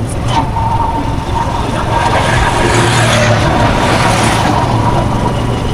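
Road traffic: a steady low engine rumble, with a vehicle's noise swelling up and dying away in the middle.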